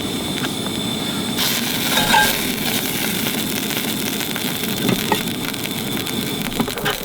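Bean-and-cheese quesadillas frying in a pan: a steady sizzle, with a couple of light clinks near the end.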